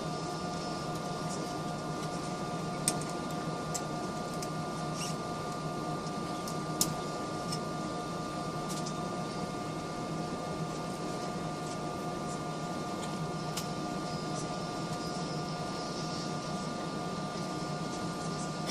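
Steady drone of an airliner cabin, a constant hum with several held tones from the aircraft's engines and air system. A few light clicks over it, with a sharper one about three seconds in and another about seven seconds in.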